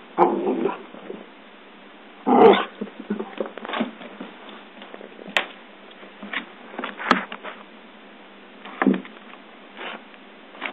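Small dog making short vocal sounds in separate bursts every second or two, the loudest about two seconds in, with a few sharp clicks in between.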